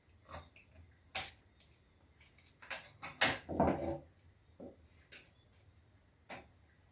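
Handling sounds of wiring work: a few sharp clicks and short scraping rustles as a neutral wire is being connected by hand.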